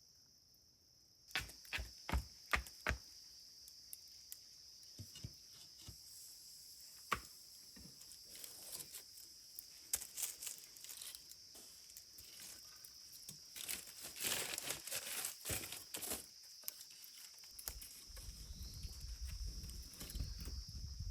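Crickets chirring steadily. Over them, a scattered run of sharp clicks and knocks starts about a second in, and a low rumble comes in near the end.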